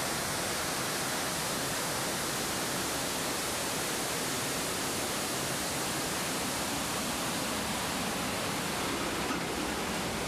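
Steady rushing of a cascading mountain waterfall.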